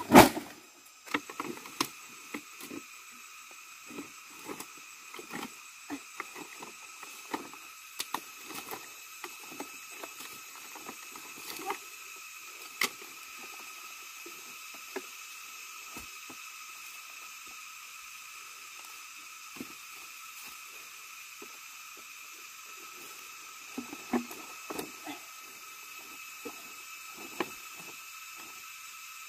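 A sharp loud click at the very start, then scattered small clicks and knocks, most frequent in the first half and again a little past halfway, over a steady faint high-pitched background hum.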